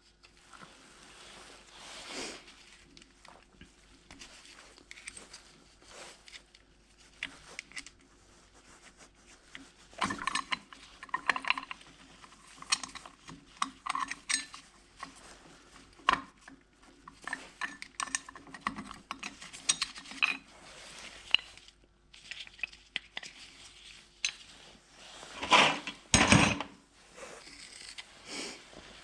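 Metal tools and engine parts clinking and knocking at irregular intervals while a 1986 Yamaha YZ250 two-stroke is taken apart by hand. There is a louder clatter near the end.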